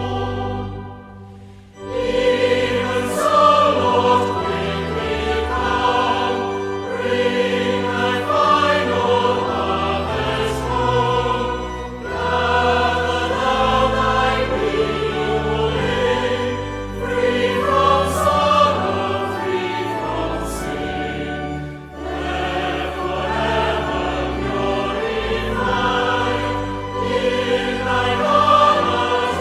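Choir singing a hymn with accompaniment. The music drops away briefly about a second in, then the singing resumes and carries on.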